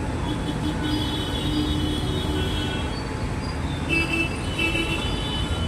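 Steady low rumble of a moving vehicle, with two stretches of high-pitched squeal, the first about a second in and the second about four seconds in.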